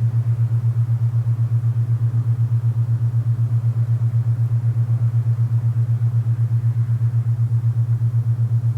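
Alpha binaural-beat tone: a steady low hum that throbs evenly several times a second, over a soft hiss of wind.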